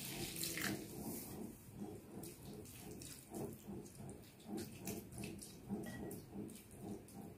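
Water poured into a hot pan of spiced clams, splashing briefly at the start. Then soft wet clicks and squelches as a spatula stirs the mixture.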